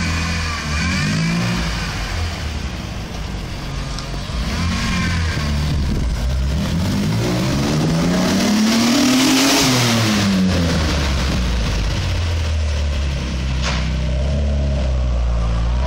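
Ford Sierra XR4x4's Cologne V6 through a new Ashley exhaust: two short revs, then a long run of acceleration whose pitch rises to a peak about nine seconds in and falls away as the car passes and eases off, then a steady low engine note.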